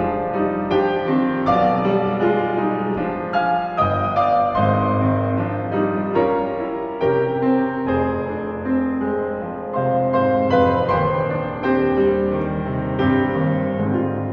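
Piano music: a steady succession of struck notes over low held bass notes, fading down near the end.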